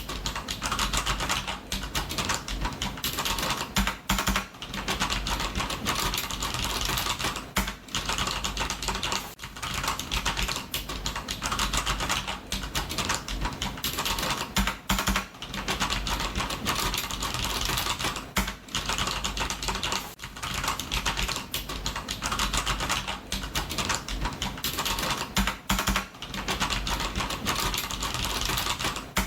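Computer keyboard being typed on fast and continuously, a dense run of key clicks broken by brief pauses every few seconds.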